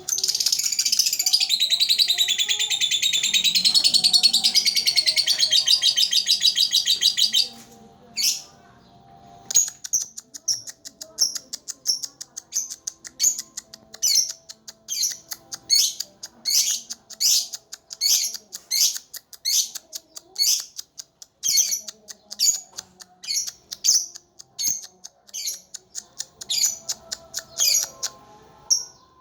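Lovebird ngekek: a long, fast, unbroken chattering trill lasting about seven seconds. After a short pause it gives a run of single sharp chirps, about two a second.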